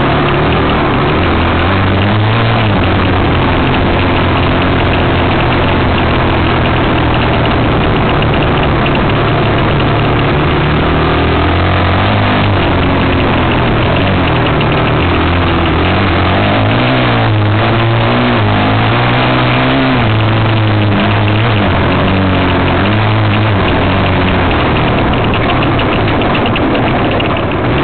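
Enduro dirt bike engine heard on board while riding, its pitch rising and falling again and again as the throttle is opened and closed and the gears change.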